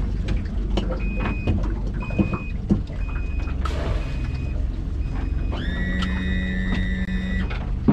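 Motorboat running under way, its engine rumbling under wind and water noise. Three short high beeps about a second apart come early, then a longer steady electronic tone sounds near the end.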